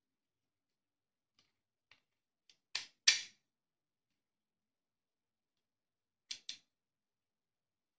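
Hard plastic clicks as a guide comb is pushed and snapped onto a hair clipper: a few faint ticks, then two sharp clicks about three seconds in and a quicker pair a little after six seconds.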